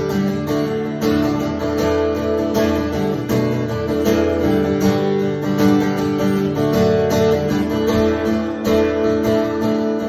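Acoustic guitar strummed in steady chords, an instrumental passage with no singing.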